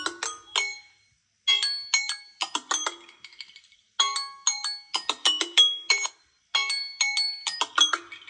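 Samsung Galaxy smartphone playing a chiming ringtone melody: a short phrase of quick, bell-like notes, repeated about every two and a half seconds with brief pauses between.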